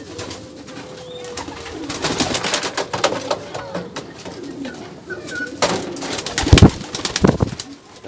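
Caged domestic pigeons cooing, with rustling and knocking as a pigeon is handled close to the microphone, and two heavy bumps near the end.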